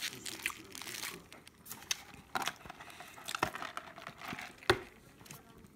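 Paper food packaging crinkling and rustling in irregular short crackles, with one sharp click a little before the end.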